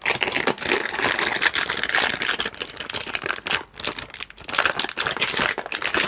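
Silver anti-static bag crinkling and crackling as hands work a mini PC out of it: a dense, continuous run of crackles.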